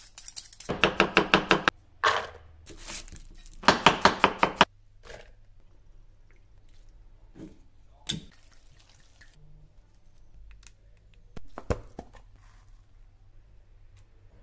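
Food being cut on a wooden cutting board: two quick runs of rapid cutting strokes in the first five seconds. Then quieter handling, with a sharp click about eight seconds in as a wine bottle's foil is cut, and another click near twelve seconds.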